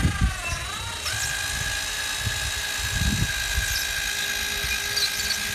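Cordless drill spinning a foam polishing pad against a plastic headlight lens, buffing on polishing compound. Its motor whine dips, climbs about a second in to a steady high pitch and holds there, then starts to wind down at the very end.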